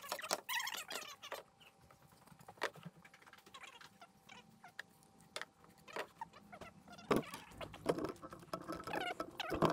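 Plywood panels being handled on a shop table: scrapes and scattered light knocks of wood on wood, busier and louder near the end.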